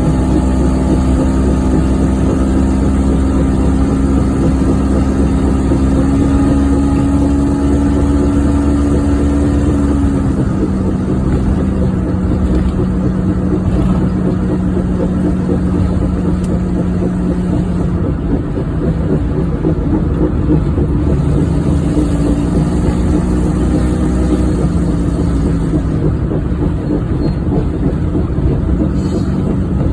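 1994 Geo Metro driving along, which has a bad wheel bearing: steady engine and road noise with a droning tone that drops in pitch about ten seconds in and rises again near the end.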